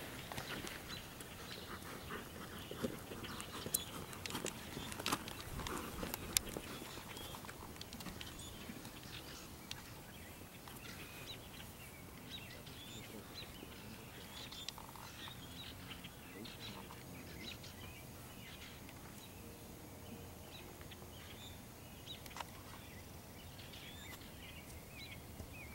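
Faint outdoor background with small birds chirping on and off, and a few sharp knocks in the first several seconds.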